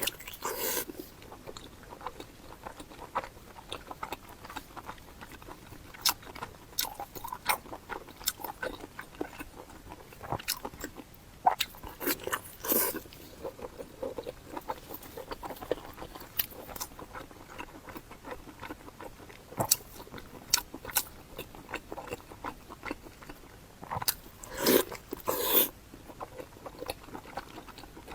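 Close-miked eating: bites and chewing with crunching and wet mouth clicks. The loudest bites come at the start, about halfway through and near the end.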